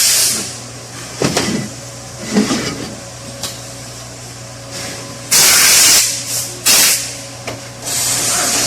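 Loud bursts of pressurised hissing spray: one at the start, a long one a little past halfway, a short one soon after, and another starting near the end. Between them come a few light knocks of metal parts being handled, over a steady low hum.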